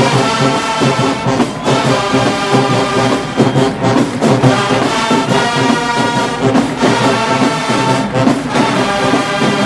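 Marching band's brass section playing a loud tune in full phrases, with short breaks between them.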